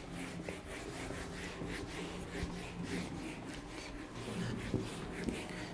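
Handheld eraser rubbing across a whiteboard in quick back-and-forth strokes, about three a second, wiping off marker writing.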